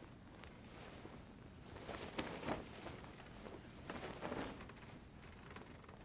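Blanket and bedding rustling as a person lies down on a bed and pulls the cover over himself, loudest in two spells about two and four seconds in, over a faint steady low hum.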